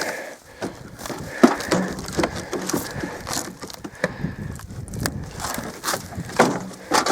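Wooden boards and debris being shifted and pulled by hand: irregular knocks, cracks and scraping, with the sharpest knock about a second and a half in.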